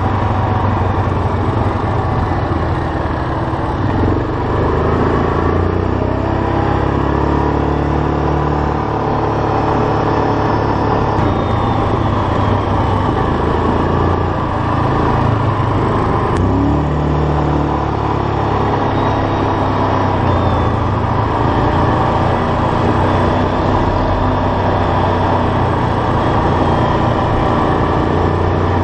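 ATV engine running while riding, its pitch stepping up and down with the throttle, under steady wind and road noise.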